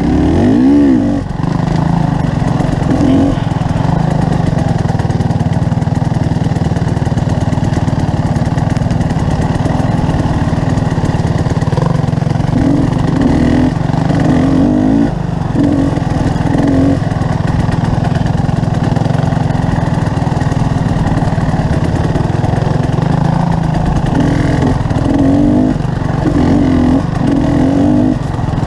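Motorcycle engine running steadily under way, its pitch swelling and easing now and then with the throttle, over a continuous rush of wind noise.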